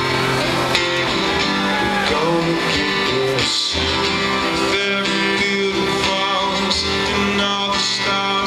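Acoustic guitar strummed live, playing changing chords without a break.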